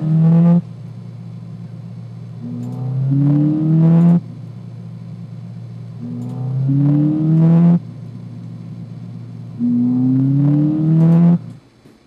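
Recorded sound of a Ford Fiesta ST's 1.6-litre turbocharged EcoBoost four-cylinder played in a loop: a steady drone at a cruise of about 3,500 rpm, then the throttle is floored and the engine note rises in pitch and loudness for a second or two before the clip cuts off suddenly. The clip ends just after the start and plays three more times.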